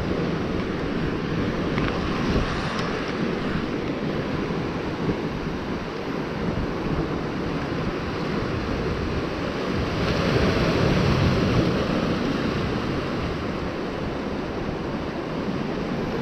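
Ocean surf washing and breaking against lava rocks, a steady rushing noise with a louder surge about ten seconds in, mixed with wind buffeting the microphone.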